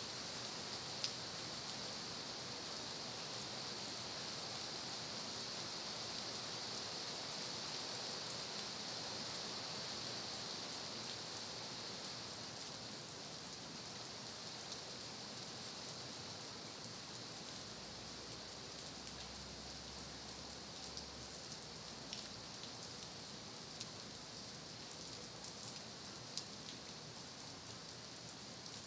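Steady rain with scattered drop ticks, cutting in suddenly and easing slightly in the second half.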